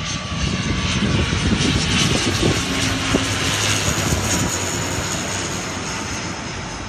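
ATR 72 twin-turboprop airliner flying low overhead on landing approach. The drone of its engines and propellers swells over the first couple of seconds, then slowly fades, and a steady tone in it sinks slightly in pitch as the aircraft passes.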